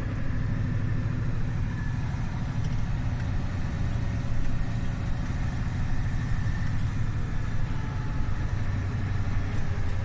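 Heavy truck's diesel engine running steadily at low speed, a low hum heard from inside the cab as the truck crawls along.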